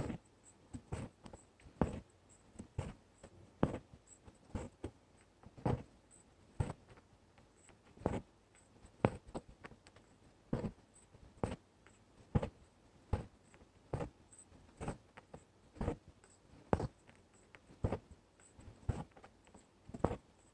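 Embroidery needle punching through fabric and the floss being drawn through while working outline stitch: short soft taps about once a second, often in close pairs.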